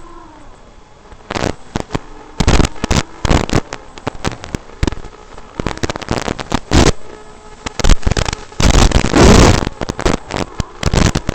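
Harsh crackling, popping noise in irregular bursts, with one longer loud blast about nine seconds in and faint steady whine tones underneath: the poor audio track of an FPV micro-drone flight recording.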